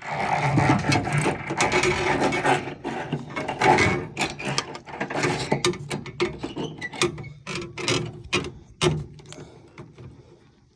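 Dense clicking and ratcheting rattle of a water heater's drain valve and plastic threaded fittings being handled and turned by hand, thinning out to scattered clicks in the second half.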